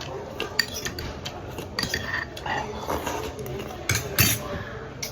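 Cutlery clinking and scraping against a bowl of doenjang jjigae while eating, with two heavier knocks about four seconds in.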